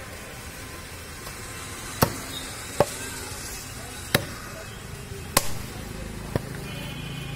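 Butcher's cleaver chopping beef on a round wooden log chopping block: five sharp, separate chops, roughly a second apart, the first about two seconds in.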